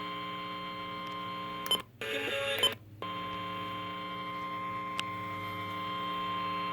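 Emergency Alert System alert tone: a steady single beep tone near 1 kHz over a buzzing hum on the broadcast audio. About two seconds in, the audio drops out for about a second, with a sharp click at each end, then the tone resumes.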